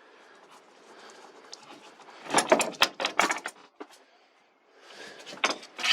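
A flurry of sharp clattering knocks about two seconds in, with more starting near the end: hard objects being handled and knocked together.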